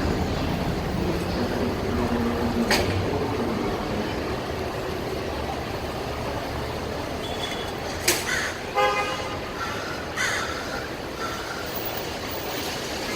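Steady traffic noise with a crow cawing a few times about eight to ten seconds in.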